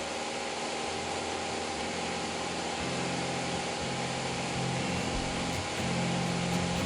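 Steady drone of a small propeller airplane's engine in flight, heard from inside the cabin. From about three seconds in, low music notes come in faintly under it.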